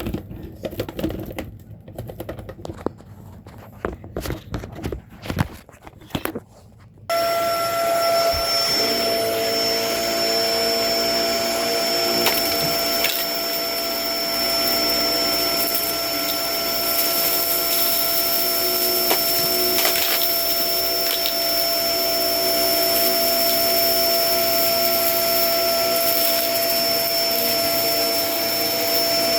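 Scattered knocks and clicks of the Kenmore vacuum cleaner being handled, then the vacuum switches on abruptly about seven seconds in. Its motor then runs steadily, with a constant high whine over the suction noise.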